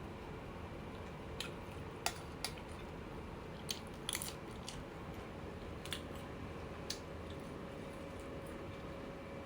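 A person chewing beef larb with raw vegetables close to the microphone: several sharp, crunchy bites scattered through the chewing over a steady background hiss.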